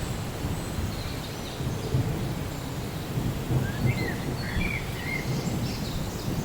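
Rain falling with a low, steady rumble of distant thunder. A bird chirps a few times in the middle.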